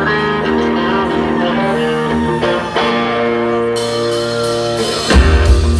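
Live rock band playing, a guitar-led song intro with sustained strummed chords. Cymbals come in a little before the end, and the full band with drums and bass crashes in about five seconds in, much louder.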